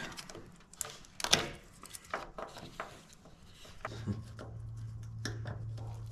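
Hands handling the plastic electrical connectors on a fuel pump module's top: scattered small clicks, knocks and rubbing. A low steady hum comes in about four seconds in.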